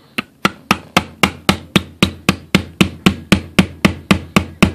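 Hammer tapping a pin back into the frame of a Smith & Wesson M&P 9 pistol: a steady run of sharp taps, about four a second.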